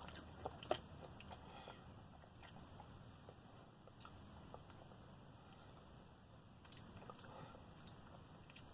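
Faint chewing close to the microphone: soft scattered mouth clicks and smacks every second or so, over a low steady room hum.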